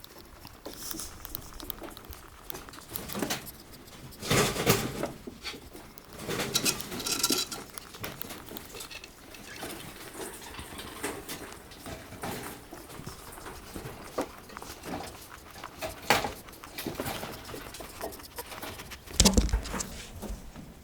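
Soviet Chinchilla rabbit tooth-purring: a run of soft, quick clicks and grinding of its teeth while it is stroked, the sign of a contented rabbit. Louder rustling comes about four and seven seconds in, and a heavy thump near the end.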